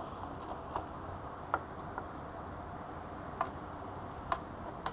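A few light metallic clicks at uneven intervals, from a motorcycle's front brake caliper being handled as its pads are spread apart by hand to slide over the brake disc.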